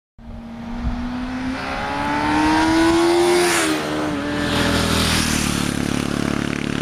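A motor revving: its pitch climbs for about three seconds, drops back, then holds a steady pulsing run.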